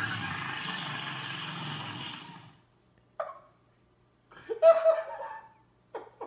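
A drawn-out noisy sound with a low buzz fades out about two and a half seconds in, followed by several short bursts of laughter.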